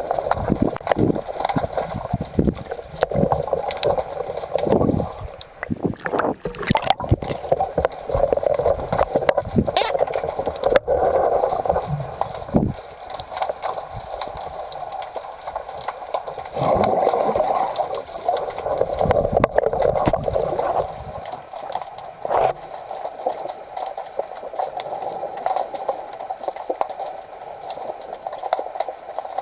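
Underwater water noise on a speargun-mounted camera: water gurgling and rushing around the housing, broken by scattered knocks and clicks that are denser in the first two-thirds.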